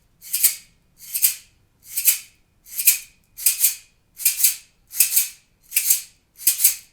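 Hand shaker held vertically and snapped in single accent strokes, a short crisp rattle roughly every three-quarters of a second, about nine in all.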